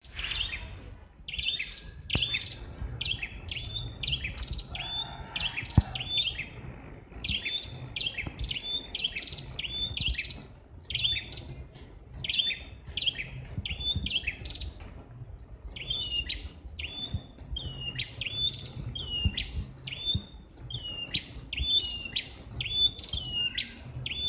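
Red-headed prenjak (prenjak kepala merah) singing loudly in a fast, repeated series of sharp, high chirping notes, about one to two a second, with a couple of short breaks. A low rumble runs underneath.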